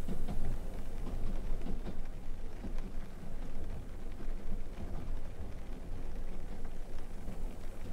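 Rain and wind ambience: a steady low rumble with a fine patter over it.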